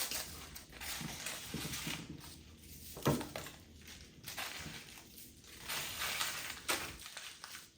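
Small toy figures and their packaging being handled on a table: irregular scraping and rustling with a few light knocks, the sharpest about three seconds in.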